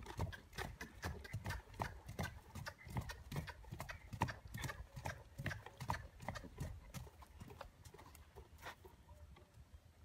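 Hoofbeats of a grey horse trotting on a dirt arena surface, an even rhythm of dull thuds and clicks that thins out and fades near the end as the horse halts.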